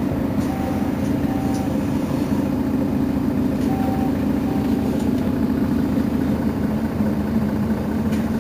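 Mercedes-Benz Citaro city bus engine idling steadily while the bus stands at a stop. Short faint beeps sound in pairs, about a second in and again around four seconds in.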